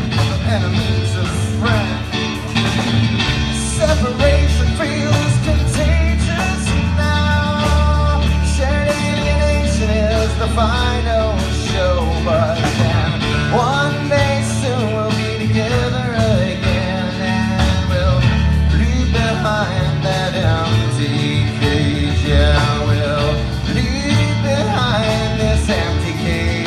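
A live band playing a country-rock song with guitar, bass and drums. From about six seconds in, a melodic lead line bends over the top.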